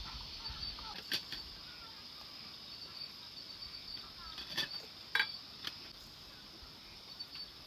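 Night insects, crickets, trilling steadily in a high pulsing drone, with a few sharp clicks about a second in and between four and six seconds in.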